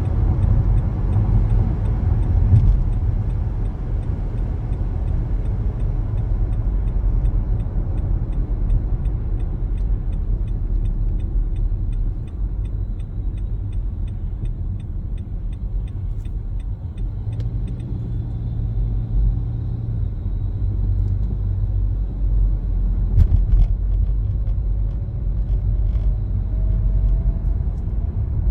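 Car driving, heard from inside the cabin: a steady low rumble of tyres and engine. A fast, even series of light ticks runs through it and stops about two-thirds of the way through.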